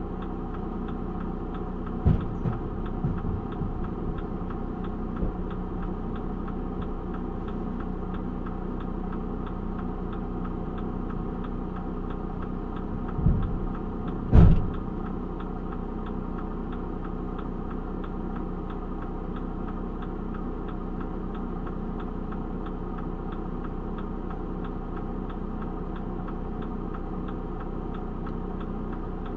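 Parked delivery van's engine idling steadily, with a faint regular ticking over it. Short thumps come about 2 seconds in and twice around 13 to 14 seconds, the last the loudest.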